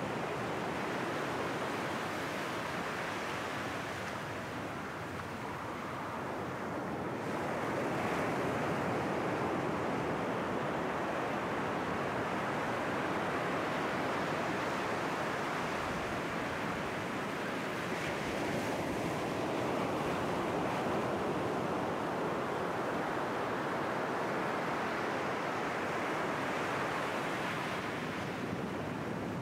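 Ocean surf breaking and washing over rocks, a steady rushing that slowly swells and eases, with some wind on the microphone.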